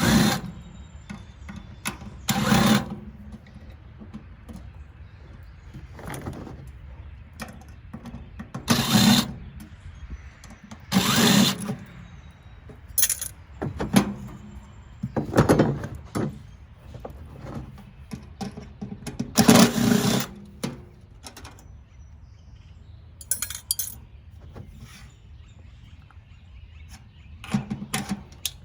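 Handheld power drill run in short bursts of about half a second to a second each, around nine times.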